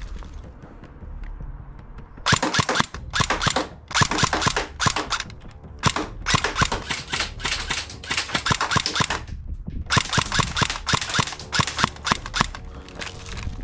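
Battery-powered airsoft AK-74M rifle firing test shots: sharp cracks in quick strings, starting about two seconds in, with short pauses between strings. The shots are single, semi-automatic fire.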